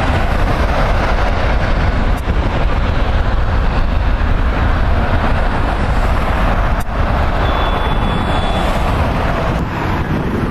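Jet engines of a Korean Air twin-engine widebody airliner at takeoff thrust: loud, steady jet noise with a heavy deep rumble as it rolls down the runway and lifts off.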